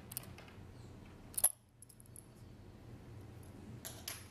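A few light metallic clicks and taps from a small screwdriver working the screw terminals of a plastic-cased electronic temperature controller, as supply wires are fastened. The sharpest click comes about a second and a half in, with smaller ones near the end.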